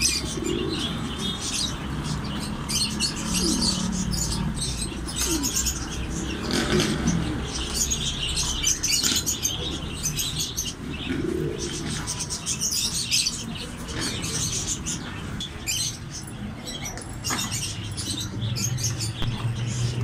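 Domestic pigeons cooing in a cage, several low gliding coos spread through, over a continuous busy chirping of small birds.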